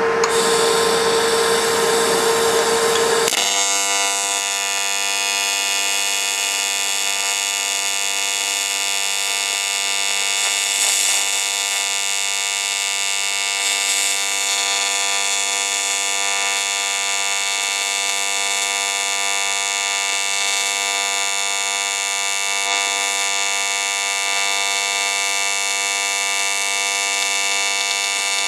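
Longevity Innovator 255i AC TIG arc welding aluminium with the pulse switched on: a hissing start that settles, about three seconds in, into a steady electric buzz.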